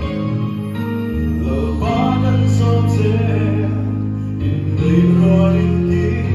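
A man singing a gospel song into a microphone over backing music with held bass chords; his voice comes in about two seconds in.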